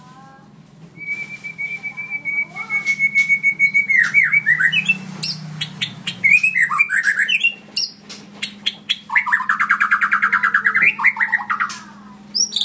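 White-rumped shama singing a varied song: a long steady whistle, then quick slurred whistled phrases, and near the end a rapid trill of fast repeated notes.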